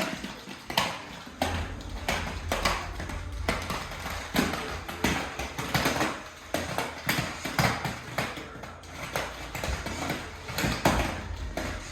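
Toy remote-control car knocking and rattling on the floor as it drives, in irregular taps several a second over a low rumble that starts about a second and a half in.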